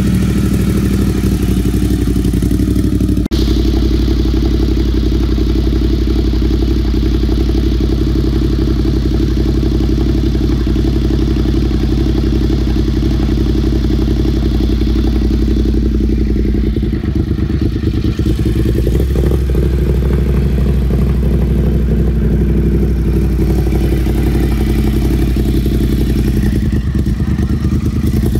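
Ducati Monster 1200S's 1198 cc L-twin engine running at a steady idle through an SC Project slip-on exhaust.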